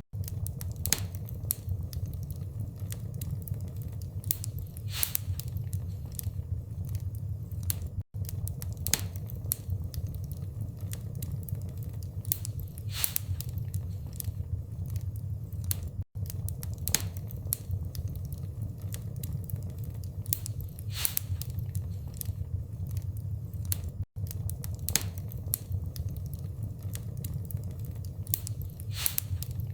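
Wood fire in a fireplace crackling: a low steady rumble with sharp snaps and pops. It is an eight-second recording looped, with a brief dropout each time it restarts.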